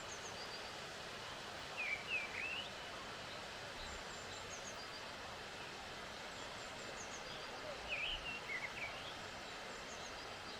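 Wild birds calling outdoors: a short cluster of quick chirps about two seconds in and again about eight seconds in, with fainter high calls between, over a steady background hiss.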